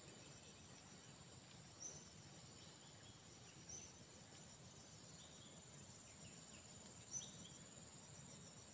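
Near silence: faint outdoor ambience with a steady high insect drone and a few short, faint high chirps about two, four and seven seconds in.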